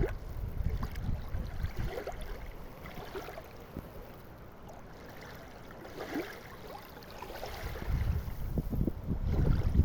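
Gusty wind buffeting the microphone, easing off in the middle and getting stronger near the end, with faint splashing of sea water.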